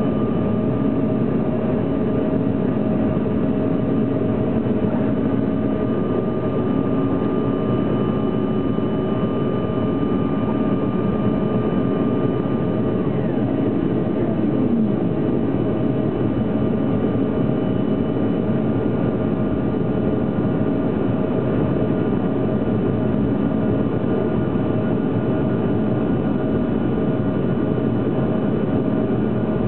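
Jet airliner cabin noise in flight after takeoff: a steady engine drone and airflow rush with faint, constant whine tones over it. Around 13 seconds in, some of the tones dip slightly in pitch.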